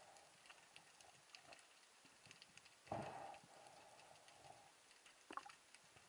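Faint underwater ambience picked up by a submerged camera: scattered soft clicks and crackles, with a brief rushing whoosh about three seconds in and a sharper click near the end.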